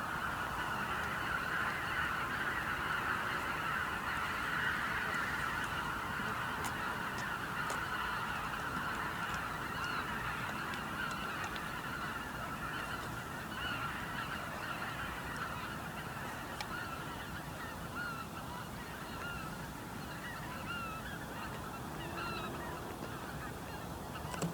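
Dense chorus of calls from a huge flock of Baikal teal, thousands of birds calling at once in a continuous clucking din. It eases slightly in the second half, as single calls become easier to pick out.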